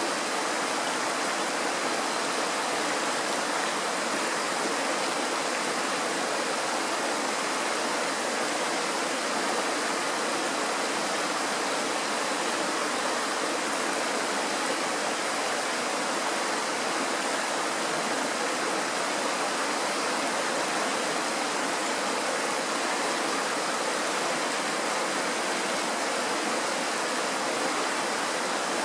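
Kirowa Woda mountain stream rushing over rocks in a small rapid: a steady, even rush of water that does not change.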